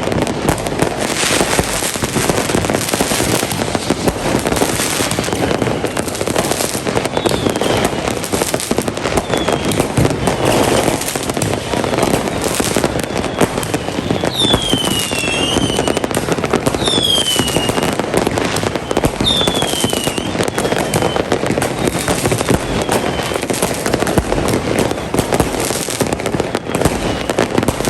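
Fireworks going off densely and without pause, a continuous clatter of many bangs. Several short whistles that fall in pitch cut through it, most of them in the second half.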